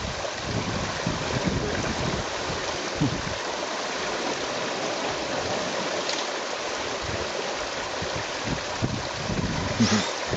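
A steady watery hiss with gusts of wind buffeting the microphone, and a few brief knocks, the loudest near the end.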